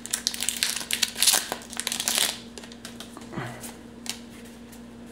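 Foil booster-pack wrapper crinkling and tearing as the pack is opened, a dense run of quick crackles over the first two seconds or so, then quieter handling of the cards.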